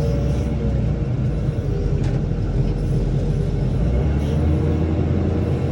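Engine of a tractor or loader running steadily while it handles hay bales, with one short click about two seconds in.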